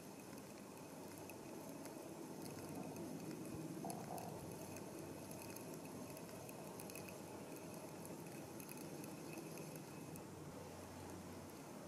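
Small ripples lapping and gurgling softly against the plastic hull of a drifting Future Beach Adventure 8.6 kayak, with faint scattered ticks.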